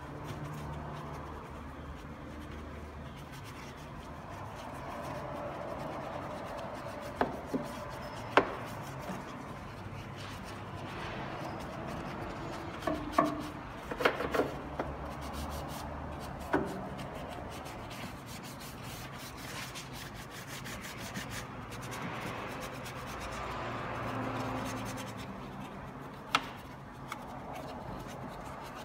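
Bristle detail brush scrubbing degreaser foam over engine-bay plastics and metal, a steady rubbing broken by a few sharp taps as the brush knocks against parts.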